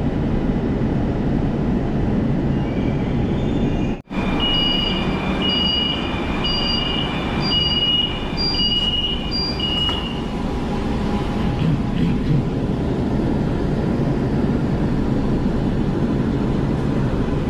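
Kolkata Metro train standing at a platform with its doors open: a steady hum and rumble, with six evenly spaced high electronic beeps about a second apart, the door-closing warning before departure. After the beeps the train runs on with a steady rumble as it pulls away from the station.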